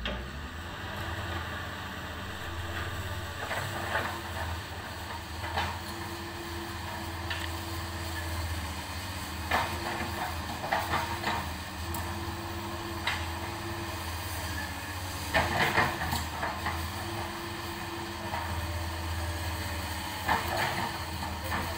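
Komatsu PC200-8 hydraulic excavator's diesel engine running steadily while it digs. Short, sharp clanks and knocks come now and then, with a cluster about two-thirds of the way in.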